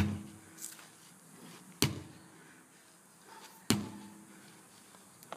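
A hammer swung overhead strikes a tire three times, roughly two seconds apart, each hit a sharp thud followed by a brief low ring.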